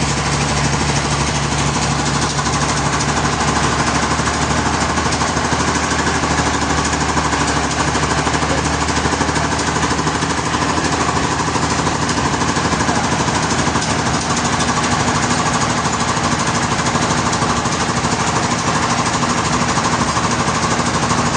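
Sawmill machinery running with a steady, fast pulsing.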